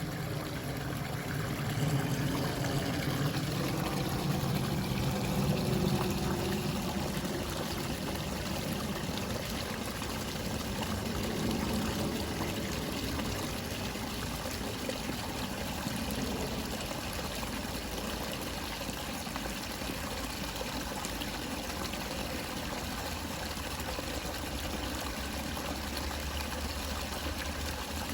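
Water running steadily in a small stream, an even trickling rush.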